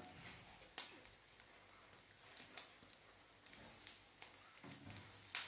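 Very quiet, sparse scrapes and taps of a wooden spatula stirring a dry squid and coconut fry in a nonstick pan, a handful of short clicks over a few seconds with the last one the loudest.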